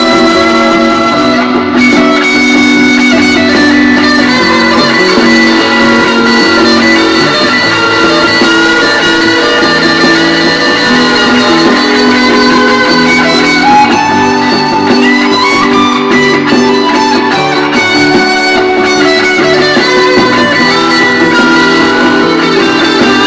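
Fender American Standard Stratocaster HSS electric guitar being played, with held, sustained notes and a rising slide about thirteen seconds in.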